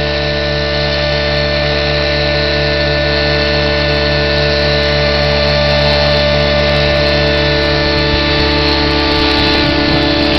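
Align T-Rex 700 nitro RC helicopter flying inverted in a low hover: the glow engine and rotor head running at a steady, constant pitch with several steady tones.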